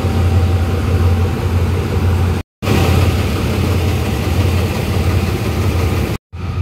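Diesel locomotive engine running with a steady low hum as the locomotive rolls slowly past on a shunting move. The sound cuts out briefly twice, about two and a half seconds in and just after six seconds.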